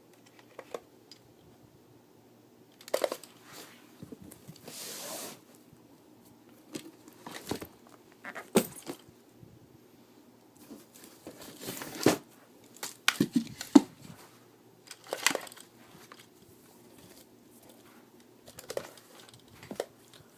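Airsoft gear being handled: scattered clicks and knocks with short rustles, and a brief tearing sound about five seconds in.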